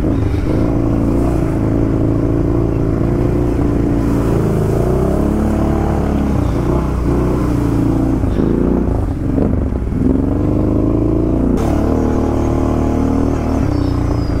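ATV engine running under way, its pitch rising and falling several times as the throttle is opened and eased.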